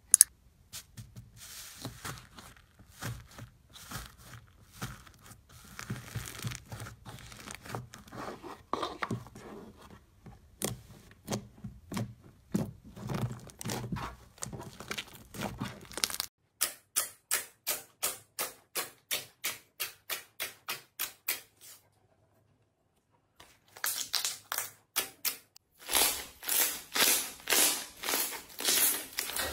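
Slime being squeezed, stretched and pressed by hand: irregular sticky clicks and squelches, then a run of evenly spaced clicks about four a second, a short silent gap, and louder regular popping about three times a second as both palms press into a large sheet of slime.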